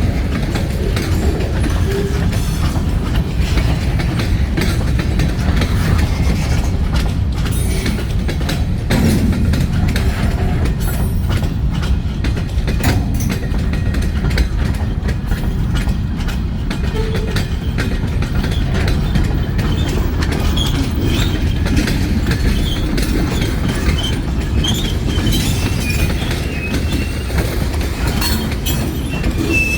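Kiamichi Railroad freight train rolling past, its wheels clacking over the rail joints, with a faint wheel squeal in the last few seconds.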